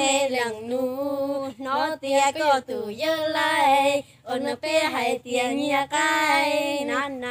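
A young woman's voice singing a Hmong song in long held notes with a wavering pitch, broken by short pauses, the longest about four seconds in.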